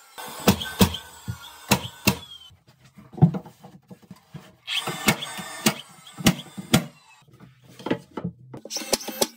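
DeWalt cordless finish nailer driving nails into a wooden cleat, a series of sharp shots about half a second apart, with a low motor hum between them and a quieter pause in the middle while a board is positioned.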